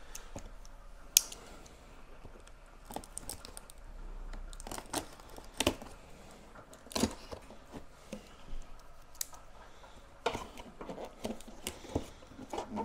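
Cardboard box being handled and opened by hand: scattered taps, scrapes and light rustling of cardboard and packing tape, with a sharp tap about a second in.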